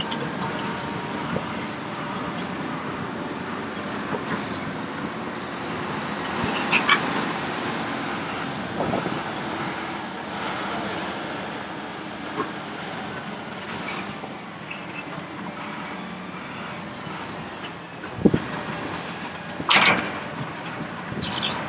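Diesel engine and hydraulics of a Hitachi ZX870 excavator running steadily under load as it digs and dumps soil. Several sharp clunks of earth and rock striking the bucket and the steel body of a dump truck, the loudest near the end.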